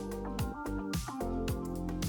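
Background music with a steady beat: a low kick drum about twice a second and crisp high percussion under held chords.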